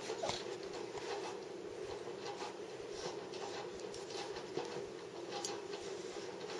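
Soft scuffling and rustling, with scattered small ticks, from a jaguar cub play-wrestling with a dog on carpet, over a faint steady hum.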